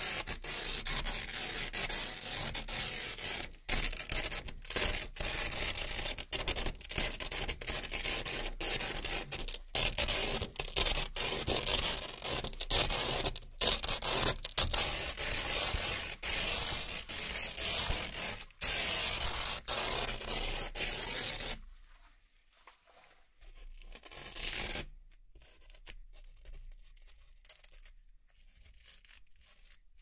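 Velcro hook-and-loop strips being peeled apart in long pulls: a dense ripping made of many close-packed clicks, with brief breaks between pulls. About two-thirds of the way through it falls to faint, with one more short rip soon after.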